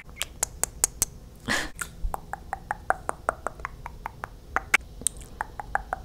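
Sticky lip smacks and pops of freshly glossed lips close to a microphone: a quick run of wet clicks, about five a second, with a short breathy hiss about a second and a half in.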